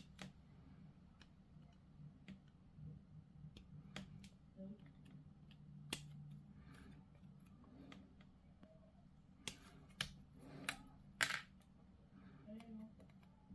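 Small hard plastic miniature parts being handled, clipped and pressed together: scattered light clicks and snaps, with a few louder ones in the later part.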